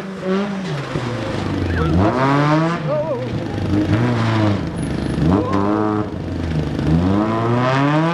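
Rally car engine revving hard, its pitch climbing steeply and dropping back again several times as the car accelerates, lifts and changes gear.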